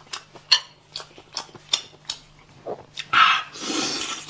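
Close mouth sounds of eating spicy snails: a run of wet smacking clicks, then about three seconds in a loud, long sucking slurp as a snail is drawn out of its shell.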